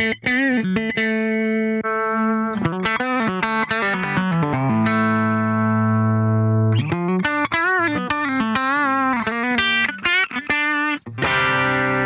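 Electric guitar played through an Xvive V9 Lemon Squeezer compressor pedal, switched on: a single-note lead line with wide vibrato and slides. In the middle there is one long sustained note.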